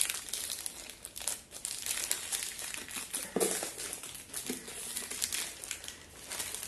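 Plastic packaging wrap crinkling in irregular crackles as it is handled and pulled open by hand.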